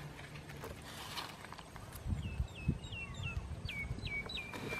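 A bird calling a quick run of short whistled notes, each falling in pitch, about three a second, starting about two seconds in. Underneath, low dull knocks and scraping from a wooden pole being worked into a burrow in dry earth.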